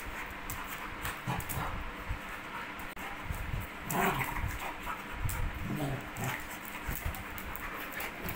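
A large dog and a puppy play-fighting: scuffling and mouthing, with a few short dog vocal sounds at about four and six seconds in.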